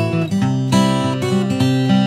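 Background music led by strummed acoustic guitar, playing a steady chord progression.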